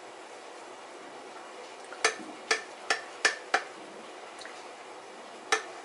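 Metal knife blade clicking against a glass baking dish while slicing through a baked pie-crust roll: five quick sharp clicks about two seconds in, then one more near the end.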